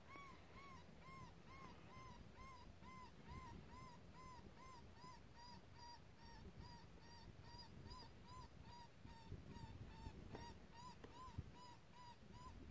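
Electronic predator caller playing a faint, very evenly repeated distress call: a short high call that rises and falls, about two to three times a second, steady in pitch.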